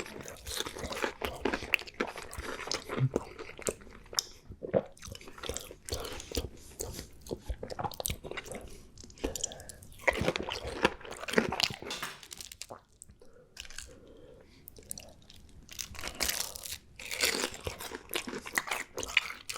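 Close-miked ASMR eating: crunchy bites and chewing in irregular runs, with short pauses.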